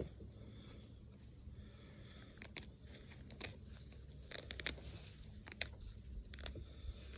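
Feathers being pulled by hand from a scalded chicken carcass: faint, irregular short rips and crackles.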